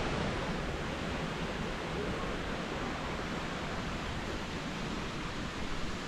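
Steady, even rush of falling water from the Ouzoud Falls, a large waterfall.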